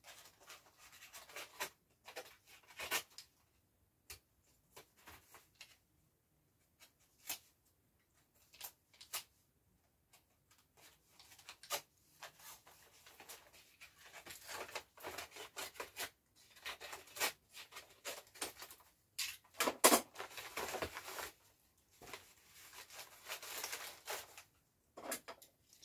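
A paper mailing envelope being slit and torn open by hand: scattered scratches, small tears and paper rustling, growing busier and louder in the second half as the contents are pulled out.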